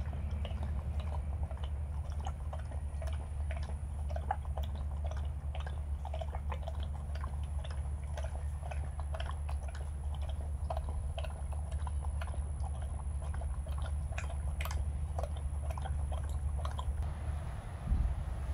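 A German Shepherd lapping milk from a stainless steel bowl: quick, irregular wet laps and tongue clicks against the bowl, over a steady low rumble.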